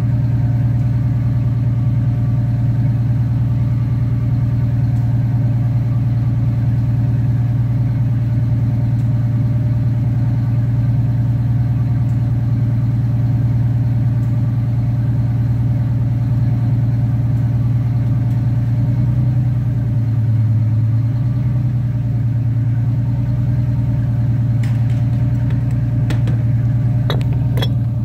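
Detroit Diesel 6-71 two-stroke diesel idling steadily, heard at its exhaust outlet, with the bad number 1 injector cut out so that the exhaust smoke clears. The low tone shifts briefly about two-thirds of the way through, and a few light knocks come near the end.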